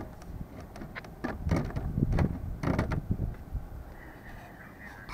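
Handling noise as hands work at the security-camera wiring in a vinyl soffit: a run of light clicks and low knocks, mostly in the first few seconds, then quieter rubbing.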